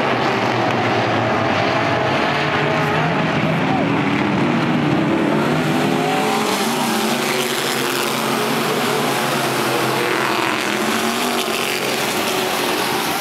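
A pack of dirt-track stock cars racing around a clay oval, many engines running at once at different pitches, rising and falling as the drivers get on and off the throttle. The sound grows brighter about six seconds in as the pack comes through the turn nearer the stands.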